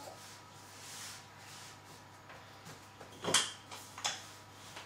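Wooden rolling pin handled on a worktop while rolling out tart pastry dough: a soft rubbing, then two short knocks about three-quarters of a second apart.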